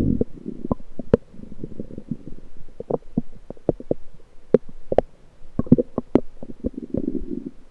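Bowel sounds from the lower intestine, heard through an electronic stethoscope: low gurgling rumbles that come and go, loudest right at the start, around two seconds in and near the end, with many short sharp clicks and pops in between.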